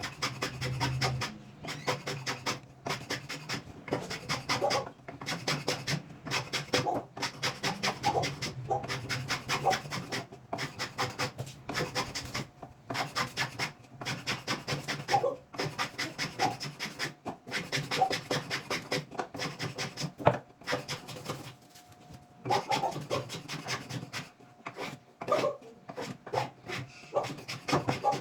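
Rhythmic back-and-forth strokes of a hand tool cutting or shaping wood, about two to three strokes a second, with a short pause about three quarters of the way through.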